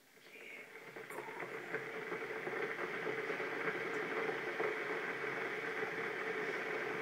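Electric kettle heating water: a steady hissing rush that swells over the first two seconds, then holds.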